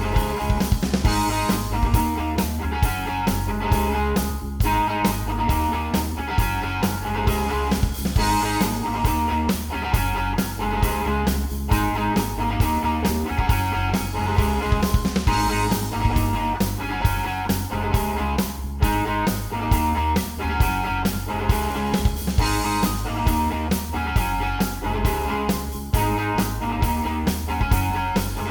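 Background rock music led by guitar, with a steady drum beat.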